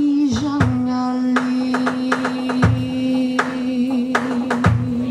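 Live band music: a female singer holds one long, steady note on the word "occasionally" over a drum kit, with a kick drum about every two seconds and short clicking percussion between the beats.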